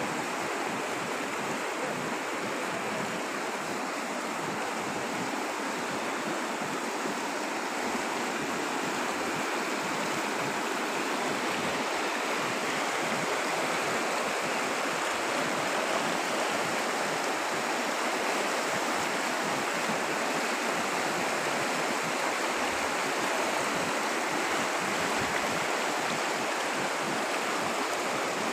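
Fast mountain river rushing over stones and small rapids: a steady whitewater hiss, getting a little louder in the second half.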